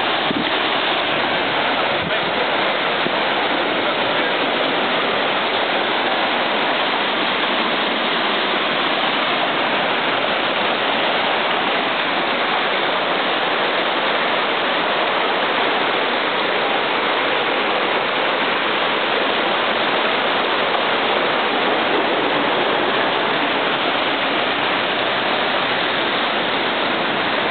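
Dawlish Brook in flood: fast, muddy floodwater rushing and churning past a stone pier in a steady, loud, unbroken rush.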